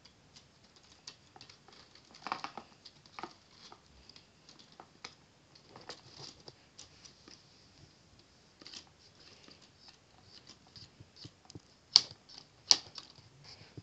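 Plastic Lego Technic parts rattling and clicking as the model is handled, with scattered small clicks and two sharper clicks near the end.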